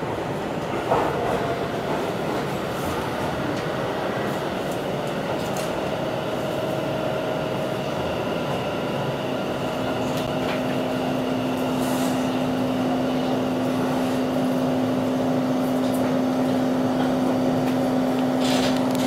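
Hanshin 1000 series electric train running slowly into an underground terminus as it brakes towards the buffer stop, heard from behind the cab: steady running noise with a couple of sharp wheel clicks about a second in, and a steady low hum that sets in about halfway through and holds to the stop.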